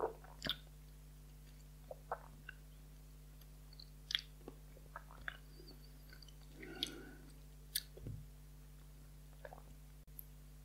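Faint mouth sounds of a taster working a sip of whisky around the mouth: scattered lip smacks and tongue clicks, with a longer wet chewing cluster a little past the middle. A steady low hum lies underneath.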